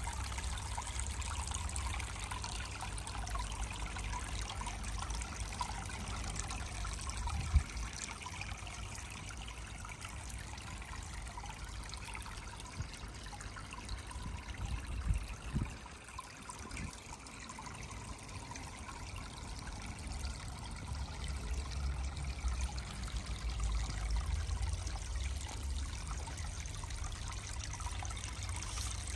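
Water steadily trickling and splashing from a spout in a half whisky barrel into a second barrel pond, over a low rumble. A single sharp knock comes about seven and a half seconds in.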